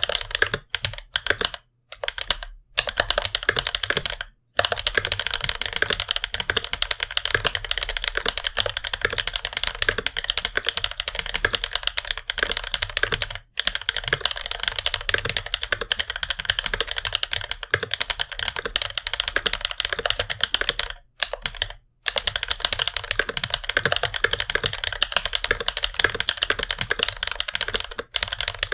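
Fast continuous typing on a mechanical keyboard with Bamboo Leaf Green tactile (non-clicky) switches, lubed with Tribosys 3203, on a brass plate with GMK keycaps. Dense rapid keystroke clacks, broken by short pauses a few times.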